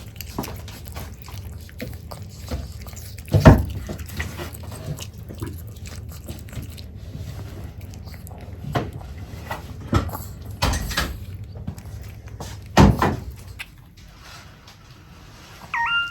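Chihuahua snoring in its sleep: a low, rumbling breath broken by four or five loud, irregular snorts.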